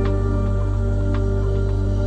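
Soft new-age style background music: long held notes with a few short notes struck over them.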